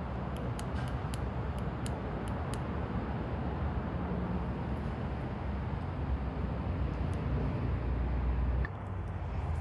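Steady rumble of road traffic overhead, heard from inside a concrete tunnel beneath the street, with a few light clicks in the first few seconds. The rumble eases about a second before the end.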